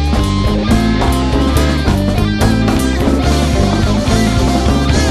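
Rock music with guitar and drums, playing steadily at a loud level.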